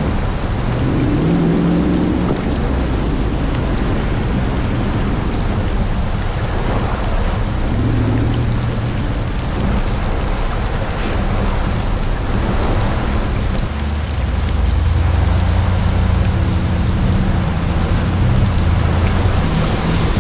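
A Jeep's engine running as it drives a flooding trail in heavy rain, with rain and water splashing over a steady engine note that grows louder in the last third.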